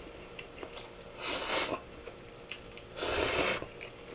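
Two loud slurps as instant ramen noodles are sucked up from a plate, one about a second in and one about three seconds in, with faint chewing clicks between.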